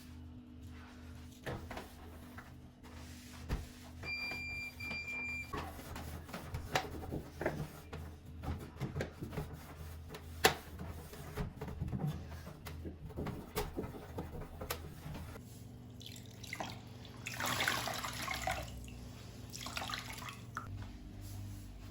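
Kitchen handling sounds: scattered clicks and knocks of items being moved, two short electronic beeps early on, and a tap running briefly near the end as something is rinsed at the sink.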